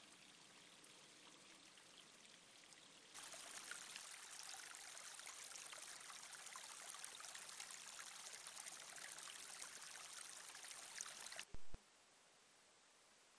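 Small forest brook trickling and running, a faint steady rush of water. It gets louder about three seconds in and cuts off abruptly near the end with a short sharp click.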